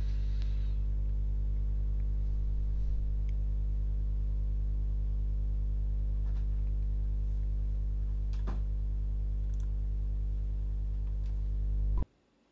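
Steady low electrical hum with a few faint, scattered clicks of remote-control buttons being pressed; the hum cuts out suddenly near the end.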